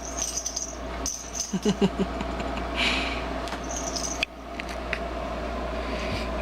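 A cat's jingle ball jingling in short spells as it is batted and knocked about, with light clicks and knocks. A few short pitched sounds come about a second and a half in.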